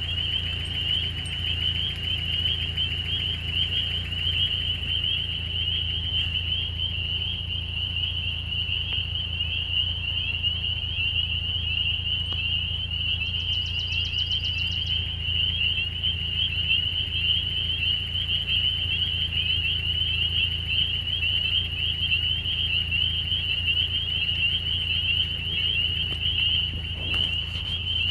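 A dense chorus of small frogs in spring, high rising peeps massed into a steady ringing wall of sound, over a steady low hum. About halfway through, a brief faster, higher trill joins in for a couple of seconds.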